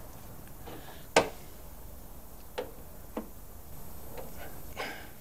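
A few sharp metallic clicks and taps, the loudest about a second in, from tools and fingers on the nut and bolt being done up to hold the heavy ground lead on the back of a new Dinse socket inside a MIG welder.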